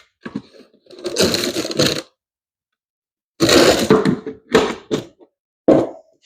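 Product packaging being opened and handled: a few separate bursts of rustling and scraping with short pauses between them.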